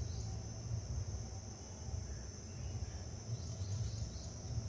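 Crickets trilling steadily, a continuous high-pitched tone, over a low steady rumble. A few faint clicks come near the end.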